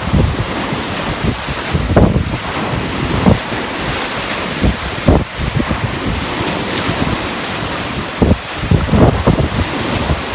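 Ocean waves washing on the shore, a steady surf noise, with wind buffeting the microphone in irregular low rumbles.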